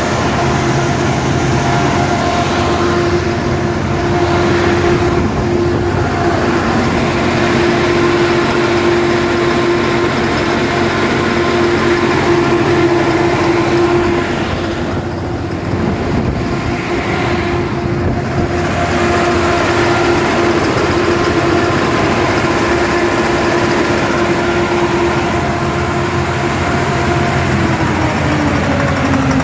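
Perkins 1300 series diesel engine running with a mechanical knock, the sign of a broken injector nozzle. The engine note holds steady, then drops in pitch near the end as the engine slows.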